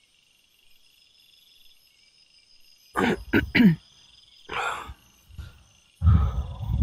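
Crickets chirring steadily in the night. About three seconds in come a few short, sharp scraping noises, and from about six seconds a loud low rumbling noise sets in.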